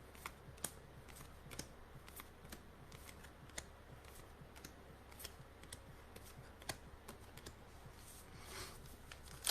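Faint, irregular light clicks and taps of trading cards being handled and flipped through while packs are opened, a few taps louder than the rest.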